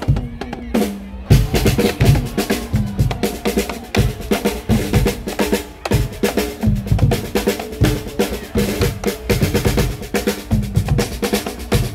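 A marching carnival band playing: trombones, saxophones and clarinets over snare and bass drums, with a steady driving beat.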